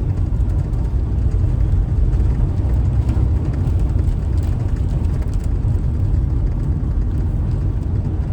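Steady low rumble of road and engine noise inside a moving camper van's cabin.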